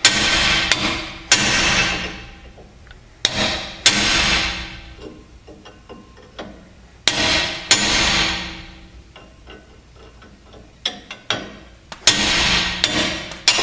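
Heavy hammer blows on a steel chisel driven into the saw cut of a rusted, tensioned leaf-spring U-bolt, to snap the hard, brittle bolt. The strikes come in clusters of two or three every few seconds, each ringing out metallically after the hit.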